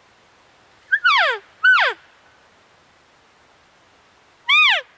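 Three short cow-elk calls, each sliding steeply down in pitch: two close together about a second in, and a third near the end.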